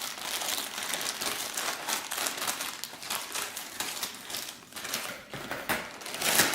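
Padded plastic packaging being opened and handled: irregular crinkling and crackling of plastic, with a louder crackle near the end.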